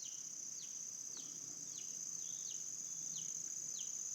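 Insects droning in a steady, high, unbroken chorus, with a bird repeating short falling chirps roughly every half second.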